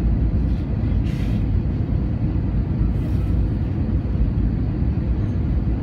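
Steady low rumble of airliner cabin noise in flight: jet engines and airflow heard from inside the cabin.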